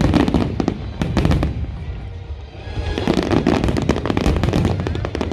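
Fireworks display: rapid bangs and crackling bursts going off in quick succession, easing off about two seconds in and picking up again a second later.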